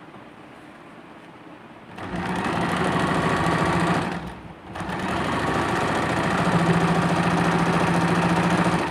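Sewing machine stitching machine embroidery on cloth. It starts about two seconds in, stops briefly about halfway, then starts again and runs steadily.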